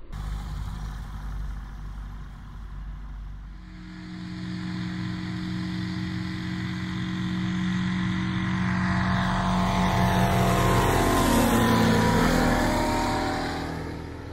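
Light aircraft's piston engine and propeller, running quieter for the first few seconds, then at full takeoff power. The steady drone grows louder as the plane approaches, then drops in pitch and fades as it passes and climbs away near the end.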